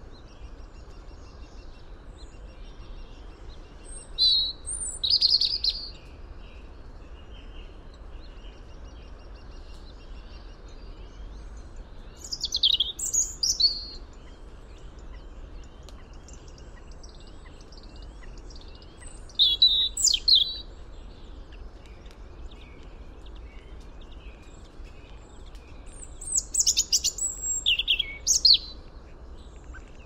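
A bird singing short, high-pitched song phrases four times, about every seven seconds, over a steady low background hiss.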